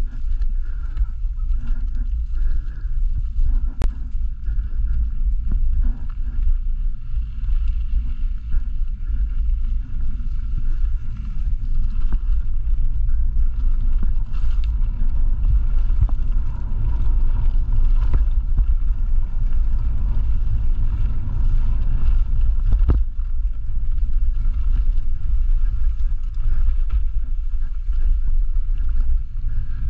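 Mountain bike descending a dirt forest trail, heard from a camera on the rider: a steady low rumble of wind buffeting the microphone and tyres rolling over the dirt, with a couple of sharp knocks as the bike hits bumps.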